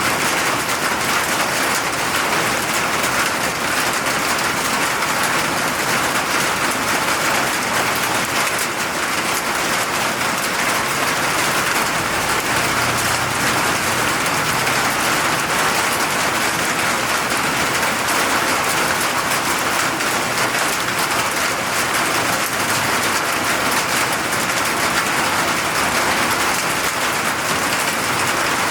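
Steady rain falling, a dense, even hiss of many drops landing.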